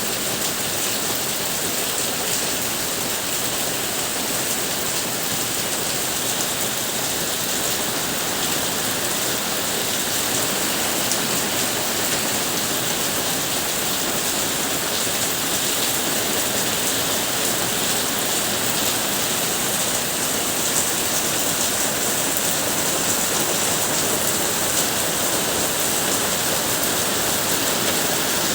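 Steady monsoon rain falling: an even, unbroken hiss of rain that neither builds nor fades.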